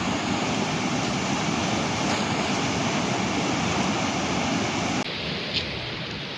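Overflow water rushing steadily through the sluices and canal. About five seconds in it cuts to a quieter, thinner rush of water.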